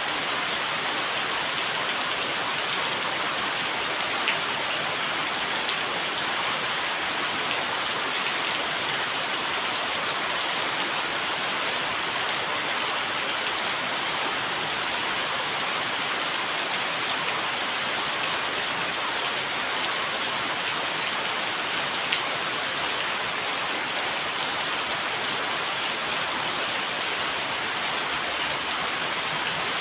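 Steady rain falling, an even hiss with now and then a single louder drop.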